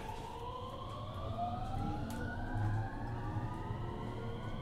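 Mitsubishi IGBT VVVF inverter and traction motors of a JR West 223 series 2000 electric train accelerating, heard from inside the car: several whining tones climb steadily in pitch over a low rumble of the running train.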